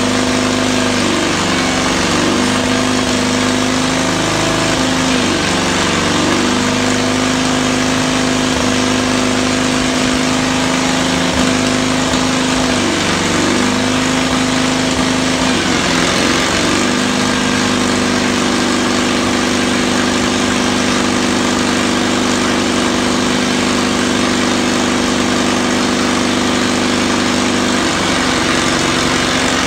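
Caterpillar D2 crawler's engine running steadily, its speed dipping and recovering briefly several times.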